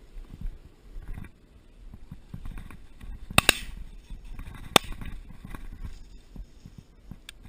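Shotgun shots: two sharp reports about a second and a half apart, the first with a brief ring after it, over the rustle of walking through field cover.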